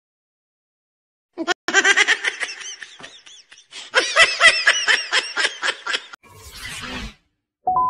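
A cartoon character laughing in rapid bursts, about five a second, in two runs with a short break between them. A brief rush of noise follows, and a bright ding sounds near the end.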